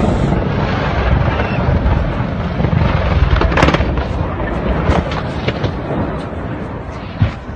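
Loud, steady rumbling noise with several sharp cracks and pops, a cluster of them about three and a half seconds in, more around five seconds, and one last crack near the end.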